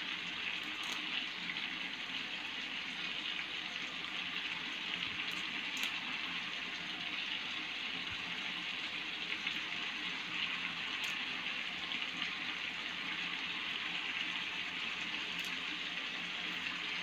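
Chicken pieces frying in a thick sauce with curry leaves in a nonstick pan: a steady sizzle, with a few faint clicks.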